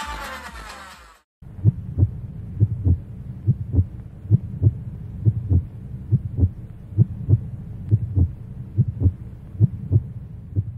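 Electronic dance music fades out within the first second. After a brief gap comes a heartbeat sound effect: low double thumps, lub-dub, about one pair every 0.8 seconds, repeating evenly.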